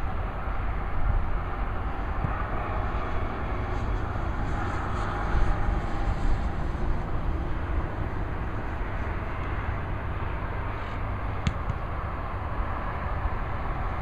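Steady rumble and hiss of road traffic, with heavy low-end buffeting. A single sharp knock comes about three-quarters of the way through.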